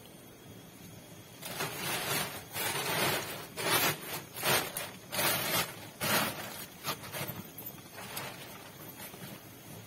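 A person moving about and handling things on a dirt floor. About a second and a half in, a run of rustling and scraping noises starts and goes on for several seconds, then fades to fainter scrapes and clicks.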